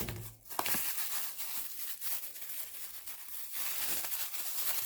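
Irregular crinkling and rustling of packaging as small watchmaking tools are handled.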